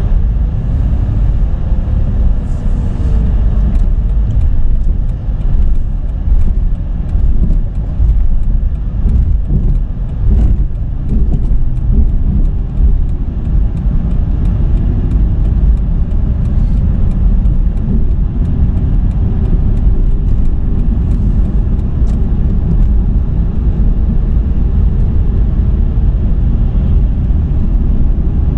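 Road and engine noise heard inside the cabin of a 2007 Dodge Charger driving in traffic: a steady low rumble, with a faint engine hum that rises and falls in pitch as the car speeds up and slows.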